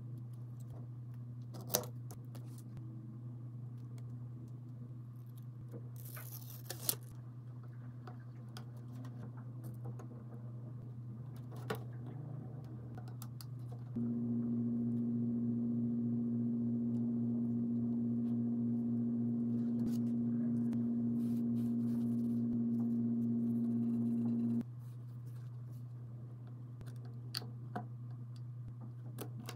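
Small tools clicking and tapping on phone parts over a low steady hum, with a short scraping rasp early on; about halfway through a small electric machine switches on, runs at a steady pitch for about ten seconds, and cuts off suddenly.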